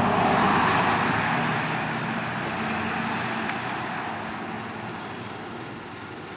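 Rescue truck driving past and away, its engine and tyre noise fading steadily.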